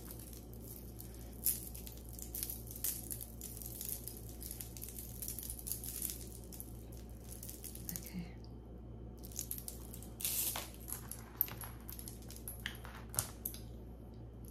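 Costume jewelry and its packaging being handled: small metal pieces clicking and clinking against each other and the table, with rustling of wrapping, over a steady low hum.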